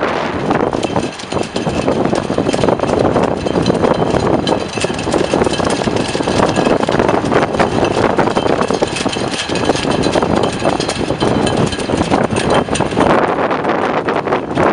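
Strong storm wind blowing hard across the microphone in gusts, with many quick crackles.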